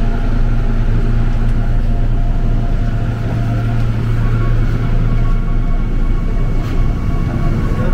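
Subway train running: a steady low rumble with several faint whining tones above it.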